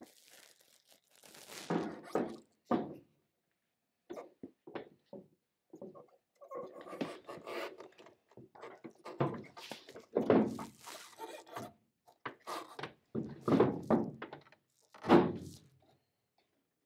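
Snowmobile drive shaft with its sprocket wheels being worked into the sled's chassis: irregular thunks and scraping of metal against the tunnel, the loudest knock about fifteen seconds in.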